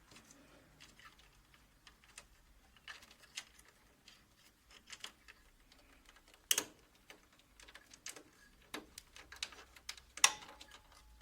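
Scattered light clicks and taps of hands working on a copier's plastic parts and cable connectors during disassembly, with a sharper knock about six and a half seconds in and another near ten seconds.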